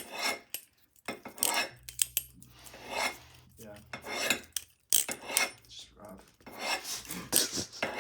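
Balisong (butterfly knife) being flipped: the metal handles swish and clack against each other in repeated rattling strokes, about one a second, with sharp clicks.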